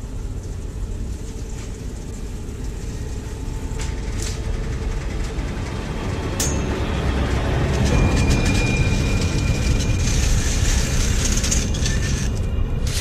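Horror-film sound design: a low rumbling drone that grows louder, with a few sharp metallic hits and a thin high tone held for a couple of seconds in the second half.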